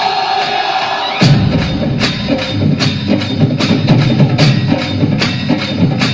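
Recorded dance music played loud, melody alone at first; about a second in a heavy bass beat with sharp, evenly spaced percussion hits drops in and keeps going.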